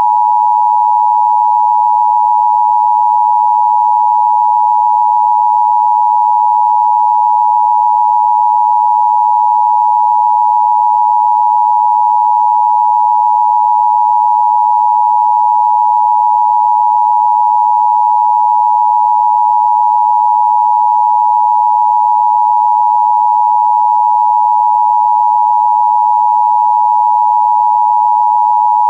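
Emergency Broadcast System attention signal: a loud, steady, unbroken two-tone beep (853 and 960 Hz together), held without change.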